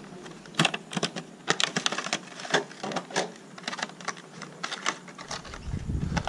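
Clear plastic retail packaging being handled and pulled apart: a rapid, irregular run of sharp clicks and crackles as a cardboard insert and a power bank are slid out of a plastic tray.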